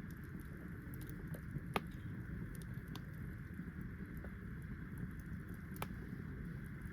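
Wood fire crackling with a few sharp pops, the loudest about two seconds in and another near the end, over a steady low rumble.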